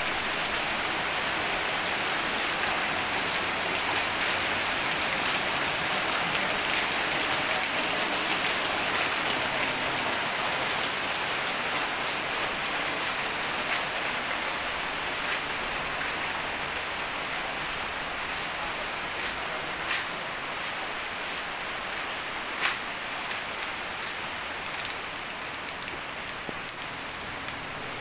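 Steady rain falling on pavement and standing water, with a few sharp taps of drops now and then.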